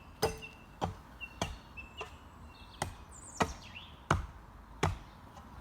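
A digging tool chopping into the soil again and again, a sharp strike about every two-thirds of a second, as trail dirt is dug out for a berm and jump.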